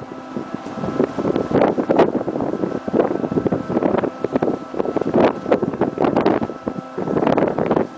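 Wind buffeting the microphone in irregular gusts, over a faint steady hum.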